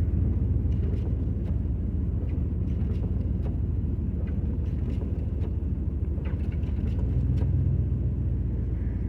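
Steady low rumble of a car driving, heard from inside the cabin: engine and tyre noise on the road, with a few faint ticks.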